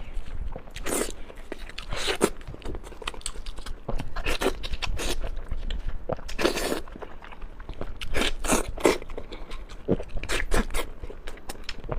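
A person eating braised pork knuckle close to the microphone: irregular wet chewing and smacking, with louder bites every second or two.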